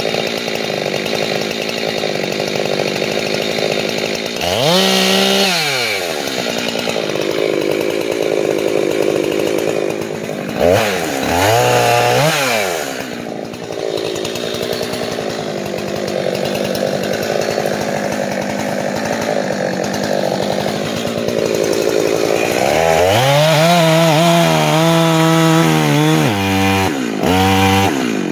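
Jonsered 2186 two-stroke chainsaw with a 32-inch bar bucking a white oak log. The engine runs under load in the cut and its pitch drops and climbs back a few times. Near the end it settles into a steady, deeper note in a fresh cut.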